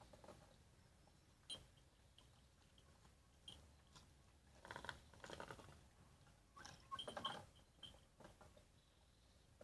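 Faint crunching and rustling as a large dog noses about and moves into its wooden kennel: a few single clicks, then two denser bursts of crunching about five and seven seconds in.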